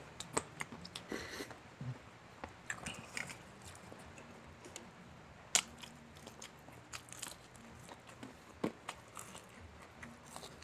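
Crispy Jollibee Chickenjoy fried chicken being bitten and chewed close to the microphone: irregular crunches of the breading between chewing. The loudest crunch comes about five and a half seconds in.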